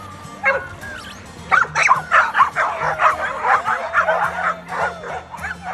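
Dogs barking and yipping excitedly, a few single calls at first, then a fast run of high yips and barks through the middle.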